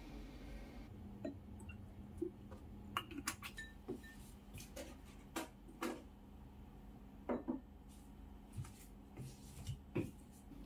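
Irregular light knocks, taps and clinks of household objects being handled and set down in a small room, with slippered steps on a wooden floor.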